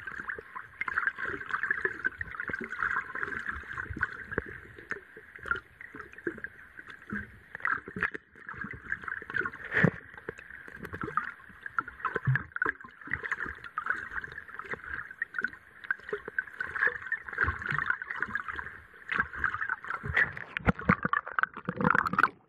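Underwater sound picked up by a submerged action camera in its waterproof case on a lake bed: a steady, muffled crackling and gurgling of water with many small irregular clicks and knocks.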